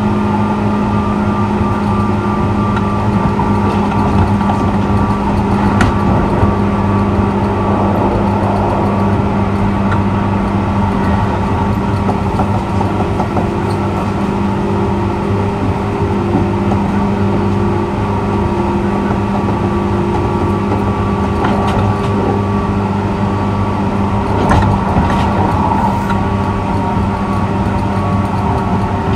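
JR 201 series chopper-controlled electric train running between stations, heard from inside the car: a steady rumble with a constant electrical hum, and a few brief clicks.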